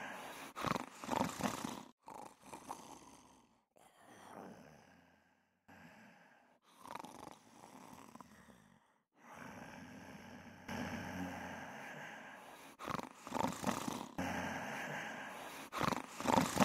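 Cartoon animal-like vocal sound effects, low purring and growling sounds, in a string of separate bursts broken by short silences.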